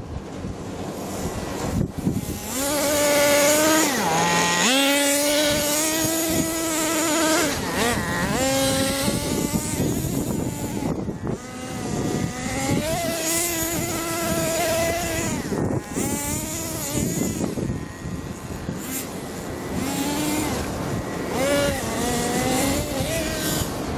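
Radio-controlled car's motor whining in several runs, its pitch rising and falling as it is throttled up and eased off, with short breaks between runs.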